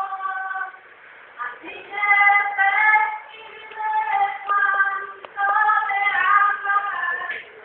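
A young woman singing solo and unaccompanied, in several held phrases broken by short pauses.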